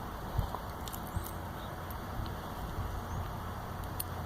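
A few faint clicks and taps of small loose items being handled, such as plastic airsoft pellets and coins cleared out of a washing machine's lint trap, over a steady low background hum.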